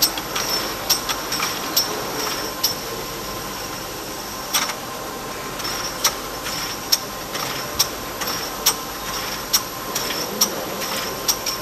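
Pharmaceutical aerosol production machine running: a steady mechanical noise with a faint high whine, and a sharp click roughly once a second as the infeed and rotary table cycle.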